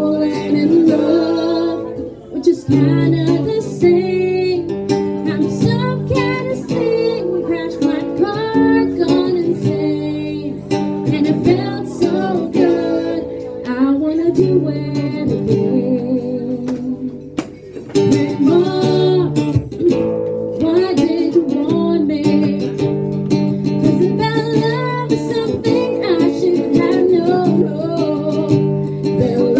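Live acoustic song: a steel-string acoustic guitar strummed under a woman's and a man's singing voices.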